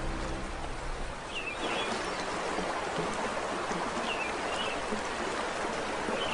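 Steady rush of flowing river water, with short high bird chirps every second or two.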